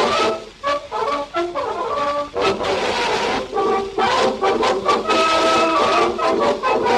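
Brass band music playing a melody of held notes.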